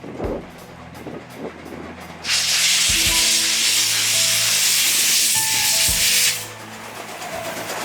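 Steam locomotive of the SL Hitoyoshi, an 8620-class engine, letting off a loud hiss of steam for about four seconds, starting a couple of seconds in, with a few low thuds underneath.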